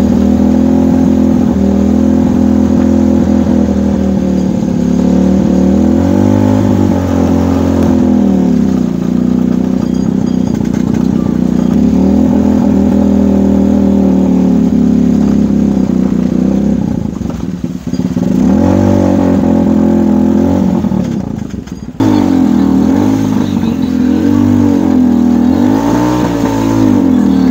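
Engine of a homemade Lamborghini-replica car running as it drives, its pitch rising and falling again and again with the throttle. It dips briefly twice in the second half and changes abruptly at a cut, then keeps revving up and down.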